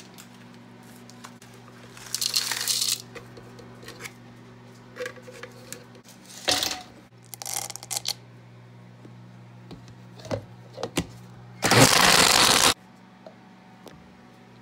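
Kitchen sounds of making a smoothie: ingredients tipped and milk poured into a blender jar, with short clattering handling sounds over a steady low hum. Near the end comes a loud burst of noise lasting about a second.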